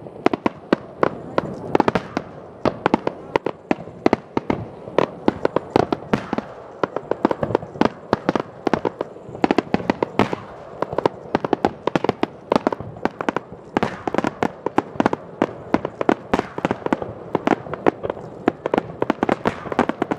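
Aerial firework shells bursting in a rapid, continuous barrage, several sharp bangs a second overlapping one another.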